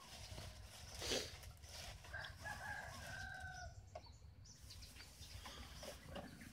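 A rooster crowing once, a single drawn-out call of about a second and a half, after a short noisy rustle about a second in.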